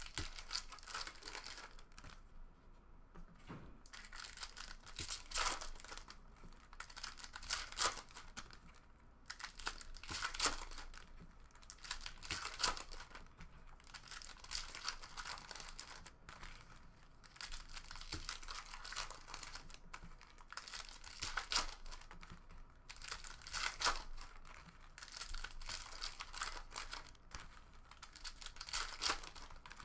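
Foil trading-card pack wrappers being torn open and crinkled by hand, in repeated short bursts every second or two.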